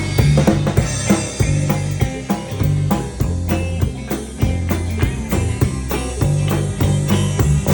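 Instrumental rock music: drum kit keeping a steady beat with electric guitar and bass, no singing.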